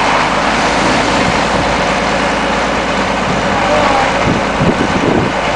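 Caterpillar 977K track loader's diesel engine running steadily as the machine creeps along the trailer deck.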